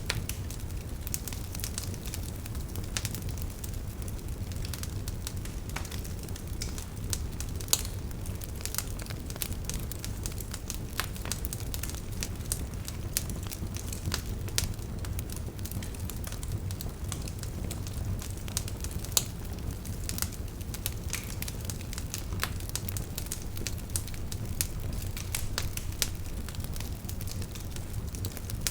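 Wood fire burning in a fireplace: a steady low rumble of flames with frequent irregular crackles and pops, two sharper pops standing out, one about eight seconds in and another near the end of the second third.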